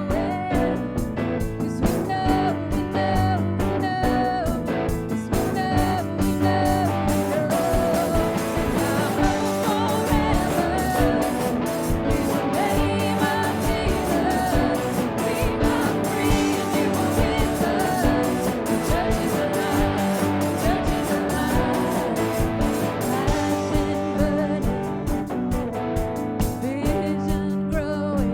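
Live worship band playing a song with guitar, with singing.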